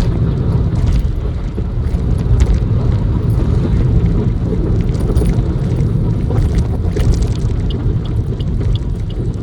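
Steady low rumble of a car's engine and tyres heard from inside the moving car, with a light regular ticking, about twice a second, starting near the end.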